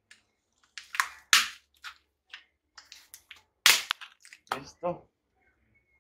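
Brittle plastic pot cracking and snapping as it is pulled and broken away from a bonsai's root ball: a run of irregular sharp cracks, the loudest about a second and a half and three and a half seconds in.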